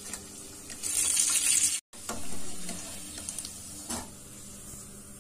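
Batter-coated bread pakoras deep-frying in hot oil in a kadhai: a steady sizzle, loudest for about a second near the start, breaking off briefly just before two seconds in. A single sharp knock about four seconds in.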